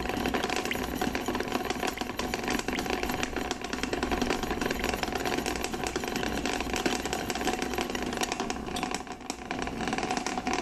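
Water at a rolling boil in a pan on the stove, with a rapid, steady rattling.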